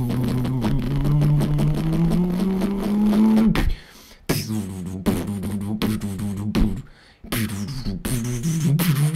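Human beatboxing: a hummed bass tone slowly rises in pitch under fast clicking beats, then breaks off after about three and a half seconds. A rhythmic pattern of vocal drum sounds and short hummed notes follows, with a brief pause about two-thirds of the way in.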